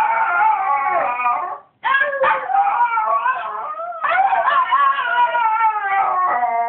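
Miniature schnauzer howling to wake its owner: long, wavering howls with a brief break about two seconds in, the last one sliding down in pitch near the end.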